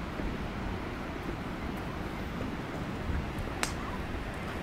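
Wind buffeting the microphone on an open clifftop: a steady low rumble. A single sharp click comes about three and a half seconds in.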